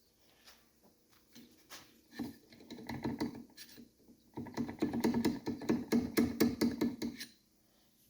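Hand-tool and metal-part handling during engine teardown: scattered clicks and knocks, then a quicker run of about five a second for some three seconds that stops suddenly.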